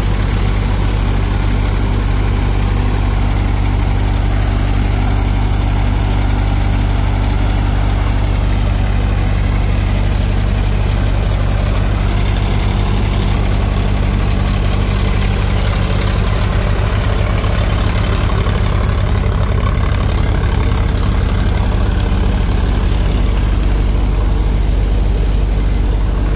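Tractor diesel engine running steadily, driving a Deepak multi-crop thresher at work, the engine and the thresher's machinery blending into one constant drone.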